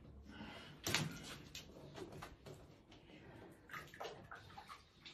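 Handling noises from floor tile being set by hand: a sharp knock about a second in, then lighter clicks and scrapes.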